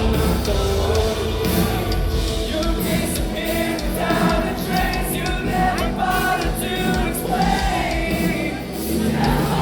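Rock band playing live, with a singer carrying the melody over the full band.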